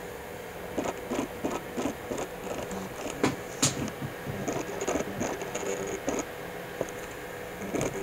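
A run of small irregular clicks and knocks, with one sharp click about three and a half seconds in, over a faint steady hum.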